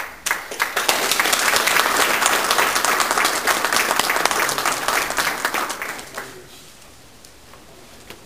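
Audience applauding, hand claps starting abruptly and dying away after about six seconds.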